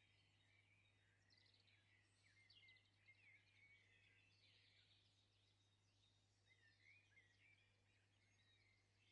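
Near silence: faint bird chirps scattered throughout, over a low steady hum.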